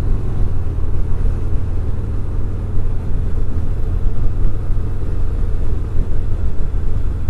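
The Harley-Davidson Fat Bob 114's Milwaukee-Eight 114 V-twin runs at a steady cruise, a deep even rumble heard from the rider's seat.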